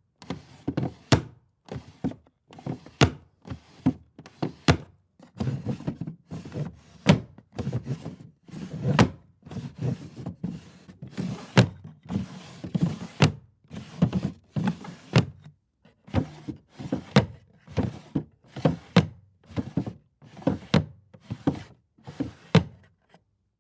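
Wooden drawers being opened and shut over and over, each one a brief wooden sliding rumble that ends in a sharp knock as it stops, about one a second.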